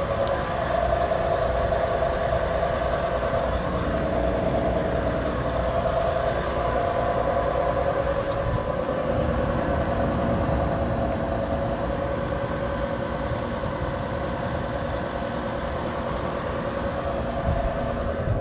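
Several Trane XB series central air conditioner outdoor units running: a steady drone of compressors and condenser fans with a held hum in it.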